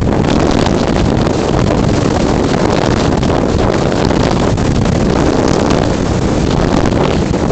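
Steady wind rush buffeting the microphone of a camera carried on an unpowered RC slope glider in flight.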